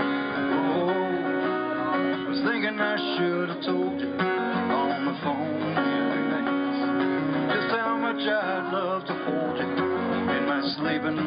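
Music: a song with acoustic guitar and a singing voice.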